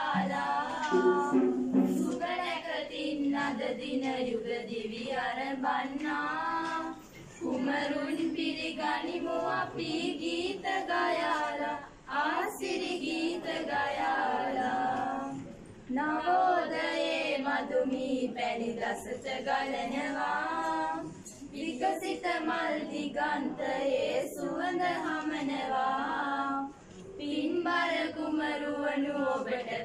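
A group of girls singing together without accompaniment, in long phrases broken by short pauses every few seconds.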